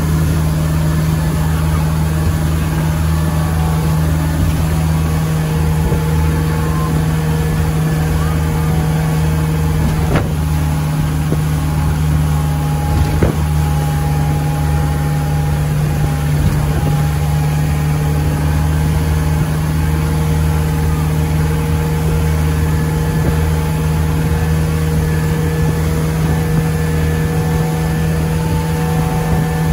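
Motorboat engine running steadily at speed under the load of towing an inflatable tube, a constant low drone, with the rush of the churning wake behind it.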